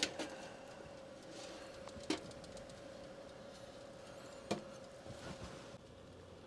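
Faint steady electrical hum with a thin, even tone from a toaster oven air-frying while powered by a portable power station, with two faint clicks; the hum drops away near the end.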